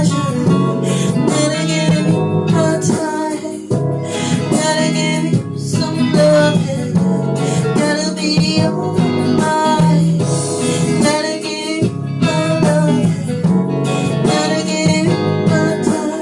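Music with guitar playing, a song's instrumental stretch between sung lines.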